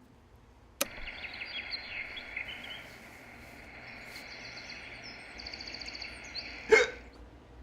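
Outdoor background of birds chirping over a steady hiss, starting with a sharp click about a second in. Near the end, one loud hiccup from a person.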